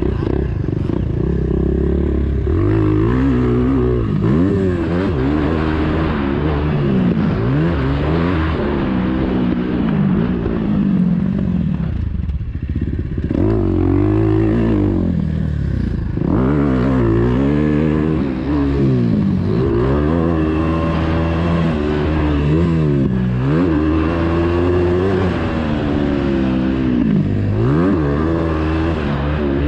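KTM 350 EXC-F's single-cylinder four-stroke engine being ridden hard, revving up and dropping off again and again as the throttle is worked through gears, jumps and turns. The pitch climbs and falls every second or two, with a couple of short off-throttle lulls near the middle. It is heard from a camera mounted on the bike or the rider.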